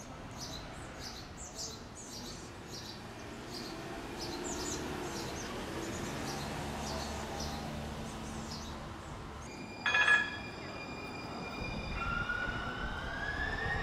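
San Francisco MUNI Metro streetcar: a single sharp, ringing bell-like strike about ten seconds in, then a whine rising in pitch as the car pulls away, over a low rumble. Birds chirp repeatedly through the first part.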